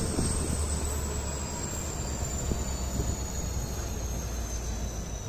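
Passenger train running, with the steady low hum of the EMD WDP4D's two-stroke diesel engine and a faint high whine that slowly falls in pitch.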